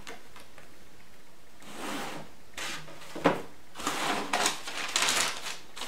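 Cardboard shoebox and its tissue paper being handled: scraping and rustling start about two seconds in, a sharp knock comes a little after three seconds, then a denser stretch of paper rustling.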